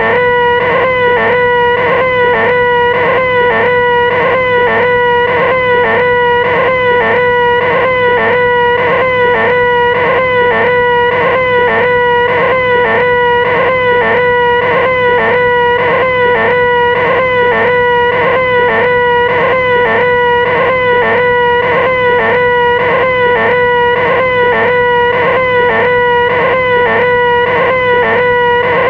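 A loud, high-pitched, nasal held 'eeeh/aaah' voice whine, the 'most annoying sound in the world', kept at one pitch without a break, with a small catch repeating about twice a second.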